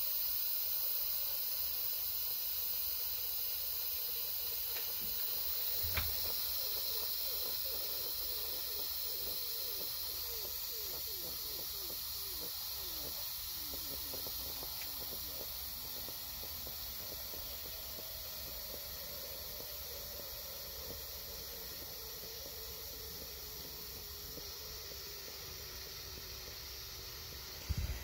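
Steam hissing steadily out of an Instant Pot IP-LUX 6-quart pressure cooker's steam release valve, slowly growing fainter as the pressure vents. A single short click comes about six seconds in.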